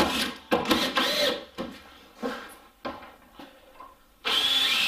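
Cordless drill driver running in bursts, driving screws into a timber shed panel: a steady whining run that stops right at the start, two short bursts in the first second or so, a few light wooden knocks, then another long steady run from about four seconds in.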